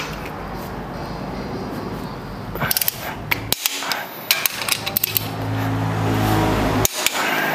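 Metal clinks and knocks of a long socket wrench being fitted onto cylinder head bolts, with a quick run of ratchet clicks a little under three seconds in and scattered single clicks after.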